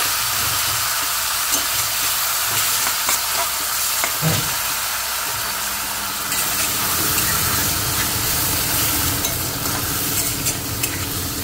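Taro pieces and ground spice paste sizzling in hot oil in a stainless steel kadai while a metal spatula stirs them, with scattered clicks and scrapes of the spatula against the pan and one dull knock about four seconds in.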